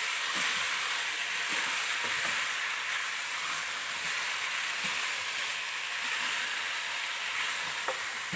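Beef frying in oil with chopped onion, tomato and whole spices, a steady sizzle, with a light knock near the end.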